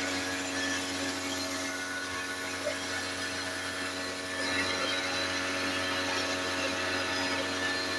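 Electric pressure washer running steadily: a constant motor hum with a hiss of spray.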